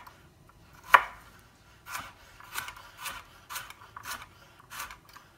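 Chef's knife chopping a carrot on a bamboo cutting board: about eight short knife strikes, unevenly spaced at roughly two a second, the first, about a second in, the loudest.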